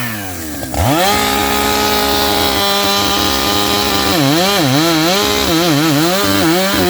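Two-stroke chainsaw cutting the felling notch in a tree trunk: the engine dips briefly, revs up sharply about a second in and runs at a steady high speed, then its pitch wavers up and down as the chain bites into the wood, before it steadies again near the end.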